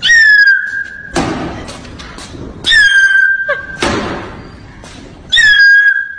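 A whistle repeated three times, each a clear tone that slides down briefly and then holds for about a second. Each is cut off by a loud bang with a short decaying tail, followed by a few lighter knocks.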